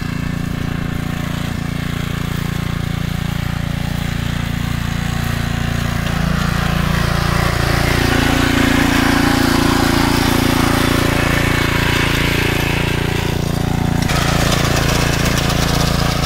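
VST Shakti 5PR walk-behind paddy reaper running steadily under load as it cuts rice, its Honda engine and reciprocating cutter bar working together. It gets louder around the middle and sounds brighter and more rattly for the last two seconds.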